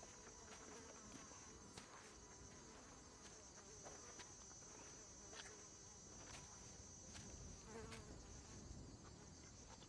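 Faint, steady high-pitched drone of insects, with scattered soft clicks and ticks through it.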